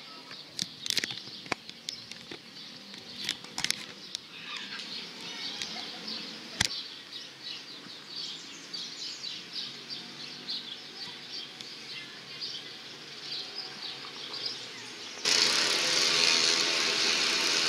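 Small birds chirping repeatedly in the open air, with a few sharp clicks in the first seven seconds. Near the end a much louder steady sound with a low hum cuts in abruptly.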